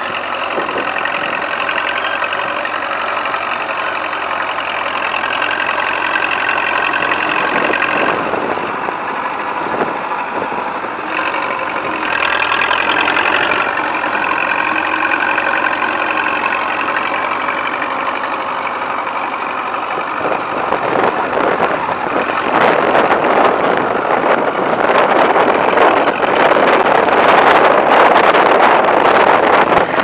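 Vintage Caterpillar crawler tractor's diesel engine running steadily under load as it pulls a trailed plough, with the crack of its exhaust; it grows louder and rougher, with clattering, in the last ten seconds.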